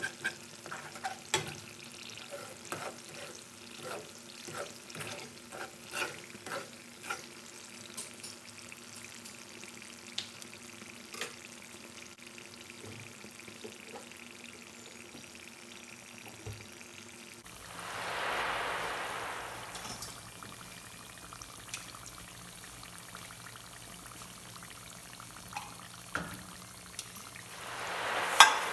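Saba bananas frying in oil in a metal frying pan: a steady sizzle with crackling pops, and sharp clicks of a metal spatula against the pan through the first dozen seconds. Later the hiss swells up twice, the second swell ending with a sharp click.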